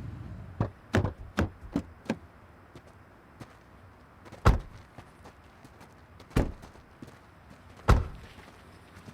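A series of sharp knocks and thuds over a quiet background: five quick, lighter knocks close together, then three louder single thuds about two seconds apart.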